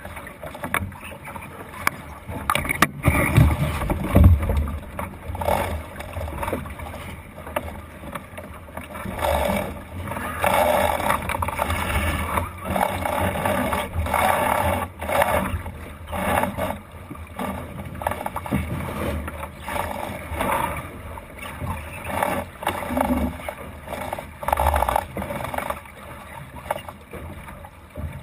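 Water rushing and splashing along the hull of a Thistle sailing dinghy moving through choppy water, in uneven surges. A single sharp knock comes about three seconds in.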